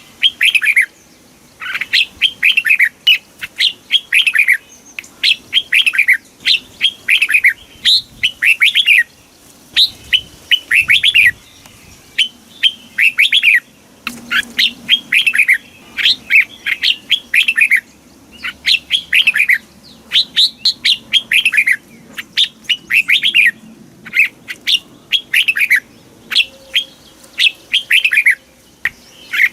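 Red-whiskered bulbul singing: quick phrases of short, clear whistled notes that sweep down in pitch, repeated in bursts with brief pauses between them.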